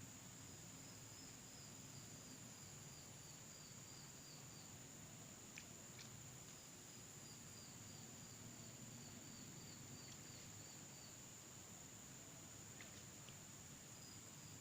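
Faint insects at a lakeside: a steady high-pitched drone with runs of short repeated chirps, about three a second, and a few faint clicks.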